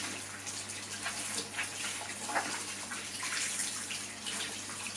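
Hot tap running into a bathtub, with irregular splashing as a cleaning cloth is rinsed under the stream.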